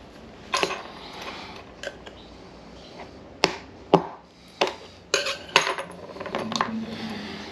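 Small metal hand tools clicking and clinking in a string of sharp, irregular strikes, loudest about halfway through, while they work the terminal off a spark plug lead.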